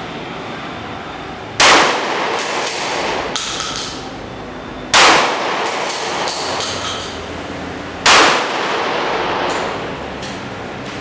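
Remington 870 pump-action shotgun firing birdshot: three loud shots about three seconds apart, each a sharp blast with a ringing tail. Fainter clacks come between the shots as the pump slide is worked to chamber the next shell.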